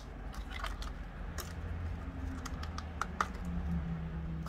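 Small, irregular clicks and ticks of a thin steel pry tool working along the plastic shell seam of a DJI Mini 2 drone, prying at the shell's internal clips.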